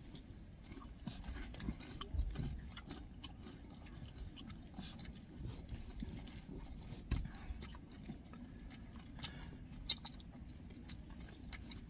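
Eating sounds: people chewing jjajangmyeon noodles and sweet-and-sour pork, with scattered small clicks and taps.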